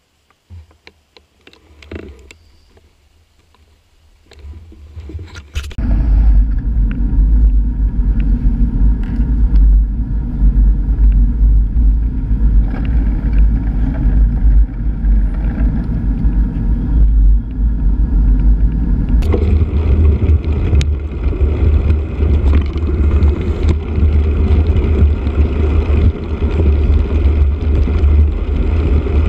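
Wind buffeting and road rumble on the microphone of a bicycle-mounted camera while riding: a loud, steady low rumble that comes in suddenly about six seconds in and grows heavier about two-thirds of the way through. Before it, a quieter stretch with a few light knocks.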